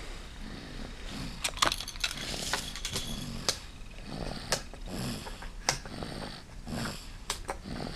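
Snoring: low, rasping breaths recurring about once a second, with sharp clicks and knocks scattered through it.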